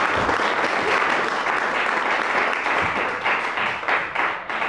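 Audience applauding, the clapping thinning to a few separate claps near the end as it dies away.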